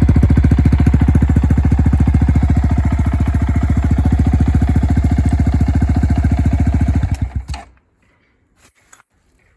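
Honda Monkey 125 (JB03) air-cooled single-cylinder four-stroke idling through a BEAMS R-EVO aftermarket silencer, with a steady, rapid, even exhaust pulse. About seven seconds in the engine is switched off and runs down within a second, leaving only a few faint clicks.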